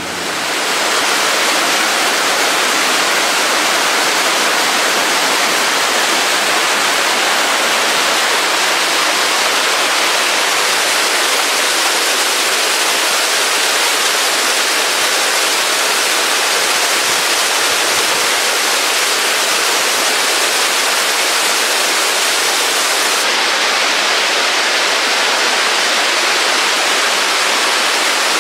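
Fast mountain stream rushing over rocks: a loud, steady, even hiss of white water that holds unchanged throughout.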